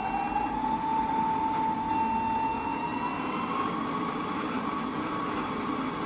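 Brushless spindle motor of a mill-drill running up as its speed is raised electronically: a whine that climbs in pitch, holds steady, then climbs again about three seconds in and settles at the higher speed.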